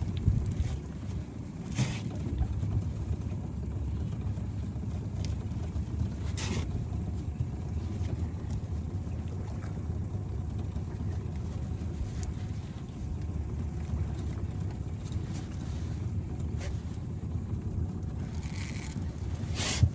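Boat motor running with a steady low rumble while a hooked fish is played on a baitcasting rod and reel. A few short hissing scrapes cut in, the loudest near the end.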